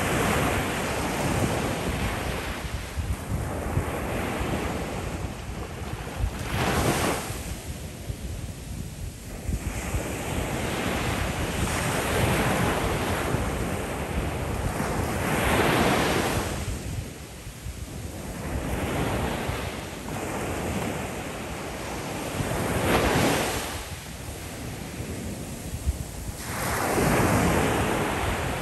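Ocean surf breaking on the shoreline, wave after wave, each a rushing swell that builds and dies away, one every four to seven seconds.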